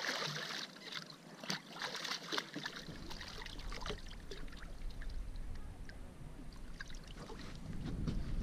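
A hooked bluefish thrashing and splashing at the water's surface beside a small boat, with a run of sharp splashes in the first few seconds. After about three seconds a low rumble comes in and grows louder near the end as the fish is swung aboard.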